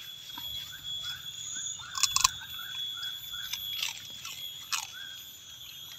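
Crunching and chewing of a crispy snack: a few sharp crunches, two close together about two seconds in and more near the end, between quieter chewing.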